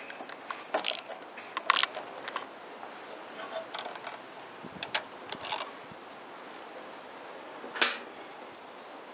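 Hand tools working the two 3/8-inch carburetor mounting bolts on a Briggs & Stratton small engine: scattered metallic clicks and several short rasping strokes, the loudest about two seconds in and near the end.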